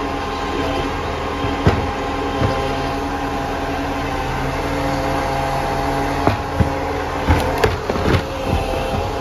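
Side-loader garbage truck running steadily while its hydraulic arm lifts, tips and lowers a wheelie bin. There are sharp clunks of the bin and arm about one and a half and two and a half seconds in, and a quick series of bangs about seven to eight seconds in as the bin is shaken out and set back down.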